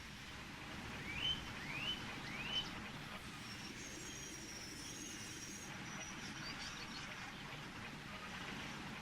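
Birds chirping over a steady low rumble of outdoor countryside ambience. Three quick rising calls come close together about a second in, followed by thin, high twittering.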